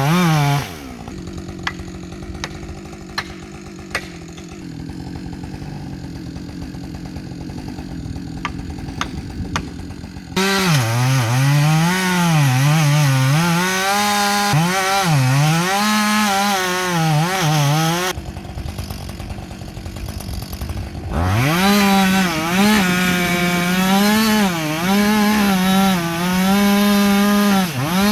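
Gas chainsaw cutting into a tree trunk, its engine note sagging and recovering as the bar bogs under load. It twice drops back to a quieter idle, the first time for several seconds with a few sharp taps, before opening up and cutting again.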